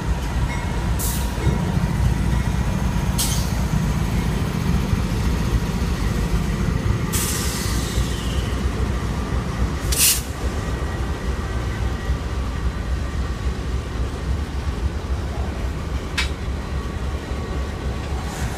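CSX freight train's diesel locomotives rumbling past at close range, a steady low engine-and-wheel drone. A few brief high-pitched hisses or squeals cut through it, one of them falling in pitch about seven seconds in.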